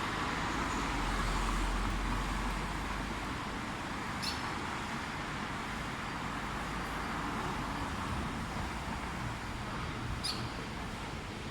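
Steady road traffic noise with a low rumble. Two brief high squeaks come about four seconds in and again near the end.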